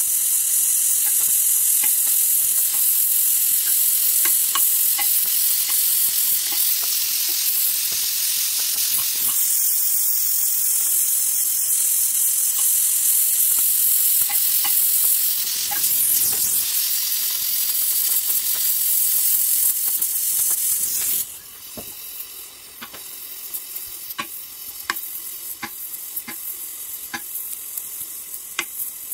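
Gas welding torch flame hissing steadily on an aluminium engine case, with small crackles and pops as aluminium filler rod melts into the weld pool. About two-thirds of the way through, the hiss drops sharply and frequent crackling is left over a softer hiss.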